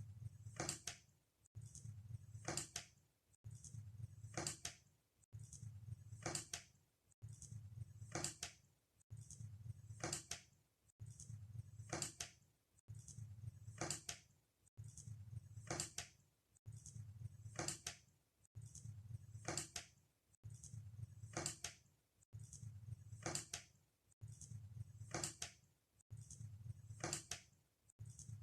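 A short sound repeating in an exact loop about every two seconds: a low hum, each time ending in a pair of sharp clicks.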